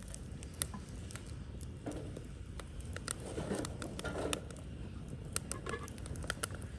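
Open wood fire crackling, with irregular sharp pops over a steady low rumble. About halfway through there is a stretch of rustling handling noise as the pot on the stove is worked.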